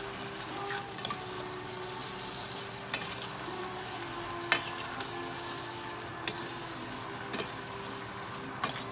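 Jumbo tiger shrimp sizzling in butter in a stainless steel sauté pan, stirred with a metal spoon that clinks against the pan several times, the loudest clink about halfway through.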